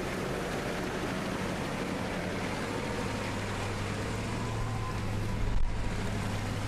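Steady vehicle engine hum and road noise from a moving vehicle, with a brief low thump about five and a half seconds in.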